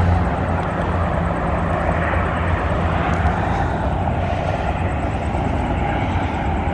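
Steady, distant engine drone: a low hum under a wash of outdoor noise, with no clear starts or stops.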